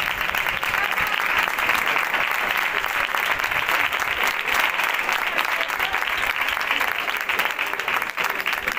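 A large crowd applauding steadily: a dense, continuous clatter of many hands clapping.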